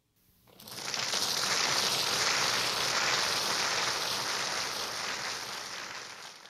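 Audience applauding, swelling up within the first second and dying away near the end.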